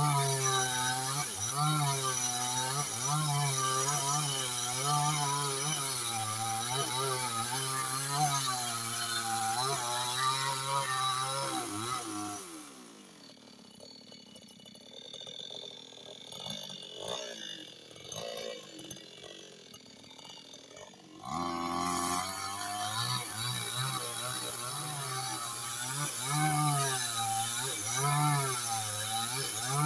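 Gasoline chainsaw cutting along a log to saw planks, its engine pitch dipping and rising about once a second under load. About twelve seconds in the engine winds down and goes quiet for several seconds, then it is running and cutting again from about twenty-one seconds in.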